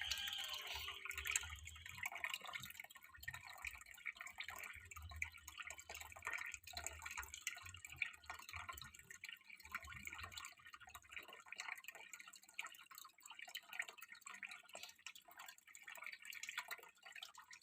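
Faint water dripping and trickling into an aquarium as a steady, uneven patter of small drops.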